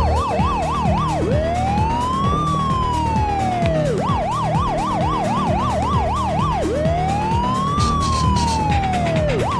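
Emergency-vehicle siren that alternates a fast warble, rising and falling about three to four times a second, with a slow rise-and-fall wail lasting a few seconds, and repeats the cycle.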